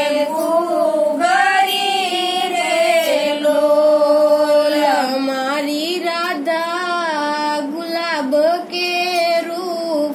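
Women singing a Gujarati devotional bhajan, a slow melody of long held notes that glide between pitches.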